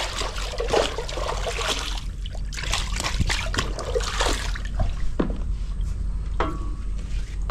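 Water trickling and splashing, broken by many short splashes and light knocks, over a steady low hum.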